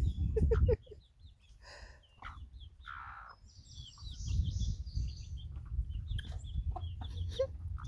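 Scattered high peeps from a young duckling, with a low call from the broody Silkie hen about three seconds in.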